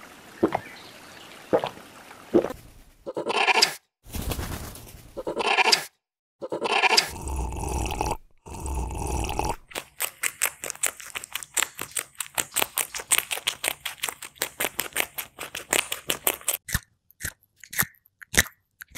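Close-up crunching and chewing of a caterpillar biting into a leaf: a dense run of rapid, crisp clicks for several seconds, thinning to a few sparse clicks near the end. Earlier come two short wavering calls and then some louder noisy bursts.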